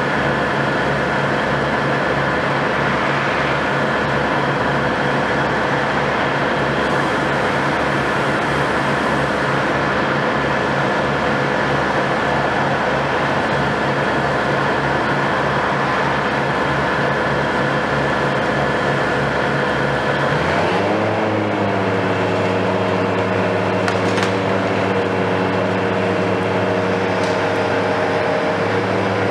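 Diesel engine of a Hitachi KMC 520 BTV high-reach demolition excavator running steadily under load, with a thin high whine over it. About twenty seconds in, the engine note changes abruptly, dipping and then settling at a new steady pitch as the machine's load changes.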